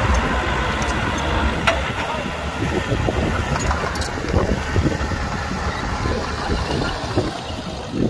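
Heavy earthmoving machinery's diesel engine running steadily, with a few short sharp clicks over it.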